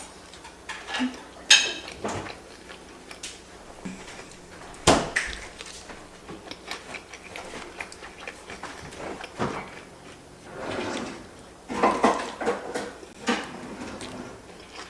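Dishes and cutlery clinking and knocking in irregular clatters, with sharper knocks about a second and a half in and about five seconds in.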